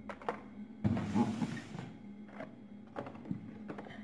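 Hot Wheels card-and-plastic blister packs being handled: a few light plastic clicks and taps, with a rustling scrape lasting about a second, starting about a second in.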